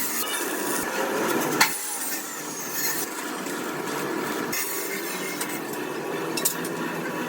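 Steady rasping, scraping noise of work on old iron, with a sharp click about one and a half seconds in.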